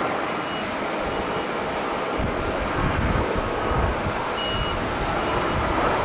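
Boeing 737 airliner's jet engines at takeoff thrust during its takeoff roll: a steady, dense rush with low rumble. Two short high electronic beeps sound, one early and a slightly longer one past the middle.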